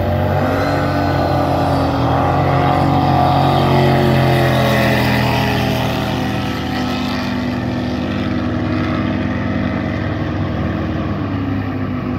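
Racing jet boat's engine running hard at speed: a loud, steady, high-revving note that climbs in pitch within the first second and eases slightly near the end.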